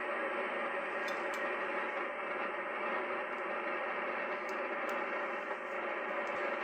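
Steady hiss of band noise from a Yaesu FT-102 transceiver's receiver, tuned with no signal on frequency, with a few faint clicks now and then.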